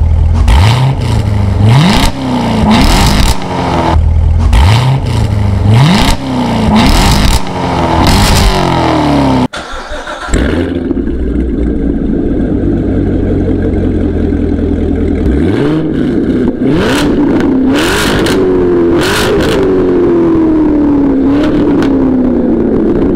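Corvette C7 Grand Sport's 6.2-litre LT1 V8 revved through its stock quad-tip exhaust in quick throttle blips every second or two. After a cut about ten seconds in, the same V8 idles with the AWE Performance X-Pipe and Touring axle-back, is revved three times, and the last rev falls slowly back toward idle.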